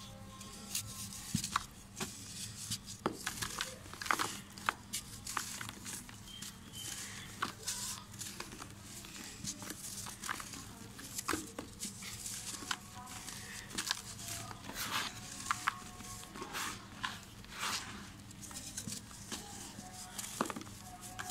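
Dry, compressed red dirt blocks crushed and crumbled between the hands, making irregular gritty crunches and crackles as pieces break off and fall into loose powdery dirt.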